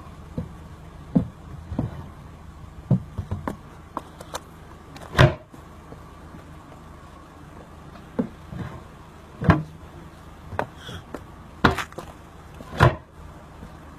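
Wooden cabinet doors being opened and shut, with a string of knocks and thuds on the cabinet's panels; four bangs stand out, about 5, 9.5, 11.5 and 13 seconds in.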